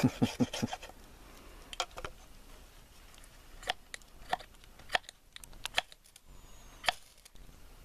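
Knife spine struck down a ferrocerium rod to throw sparks onto wood shavings: about eight short, sharp scrapes spread over several seconds, after a few dull knocks at the start.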